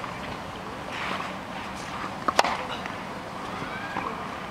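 A tennis ball struck by a racket about two seconds in: a single sharp pop with a lighter tap just before it.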